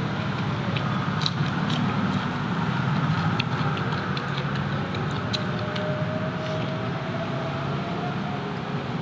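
Close-up chewing and wet mouth clicks of someone eating a mouthful of food, over a steady low rumble.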